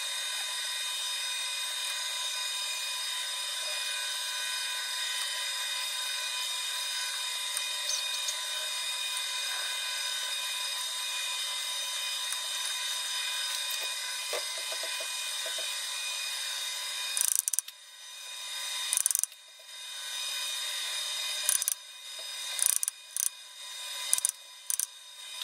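A steady, high-pitched machine hum, then about two-thirds of the way in, a run of about eight sharp knocks: a copper-headed hammer tapping the rim of a welded Mercedes W124 Gullideckel wheel in a lathe chuck to centre it against a dial indicator. After each knock the background hum drops away and slowly swells back.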